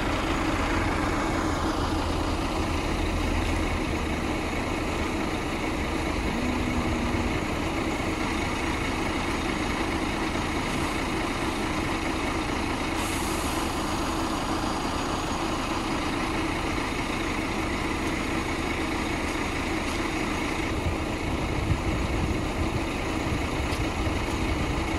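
Heavy diesel engines of a concrete pump truck and a concrete mixer truck running steadily. A high whine slides down in pitch near the start.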